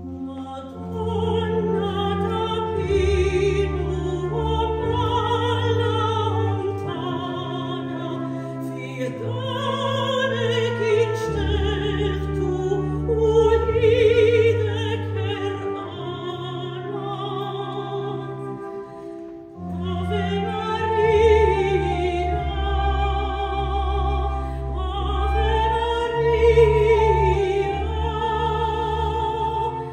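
Soprano singing a Marian hymn with strong vibrato, over sustained chords from a Johannus digital organ keyboard, with a flute joining in. The singing breaks briefly about twenty seconds in, then goes on.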